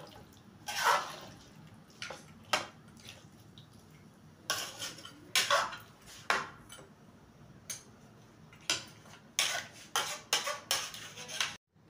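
A metal spoon scraping and clinking against a metal cooking pot as chicken curry is stirred, in irregular strokes. The sound cuts off abruptly near the end.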